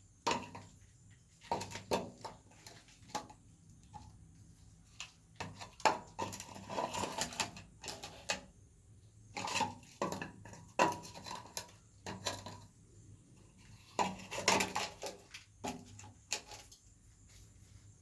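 Irregular bursts of clinking, knocking and scraping, hard tools striking and rubbing on hard material, in clusters a second or two long with short pauses between.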